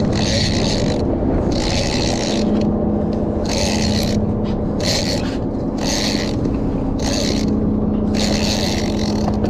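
Big-game lever-drag fishing reel (Alutecnos Albacore 80W two-speed) cranked in short strokes under heavy load from a hooked giant bluefin tuna, each stroke a brief rasping, scraping whirr, about one a second, with short pauses. A steady low hum, from the boat's engine, runs underneath.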